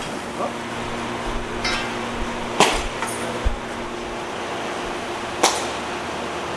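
Factory machinery humming steadily, broken by a few sharp knocks or clinks; the two loudest come about three seconds apart.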